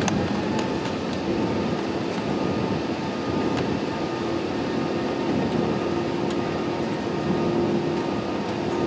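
Airliner cabin noise while taxiing: the jet engines at taxi power give a steady hum with a few held tones, one low tone growing stronger after about a second, with occasional faint clicks from the cabin.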